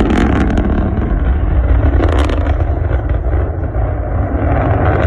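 Deep, steady rumbling roar of a rocket, with sharp crackles near the start and again about two seconds in.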